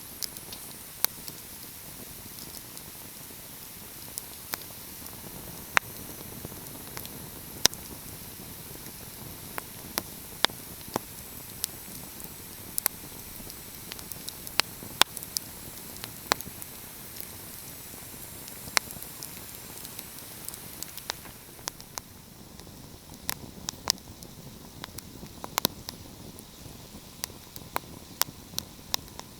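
Wood fire crackling, with sharp irregular pops over a steady hiss; the hiss drops a little about two-thirds of the way through while the pops go on.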